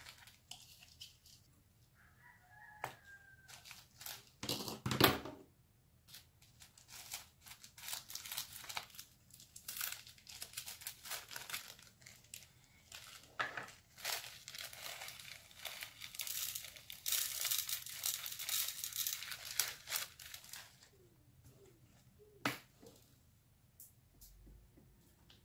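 Small plastic bags of beads crinkling and rustling as they are handled and set into a plastic organizer box, with clicks and taps of plastic on plastic. One louder knock about five seconds in, and a longer stretch of steady crinkling in the second half.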